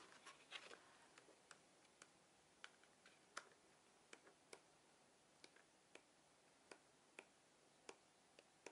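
Near silence with faint, irregular ticks and soft clicks of paper as notebook pages are turned one after another.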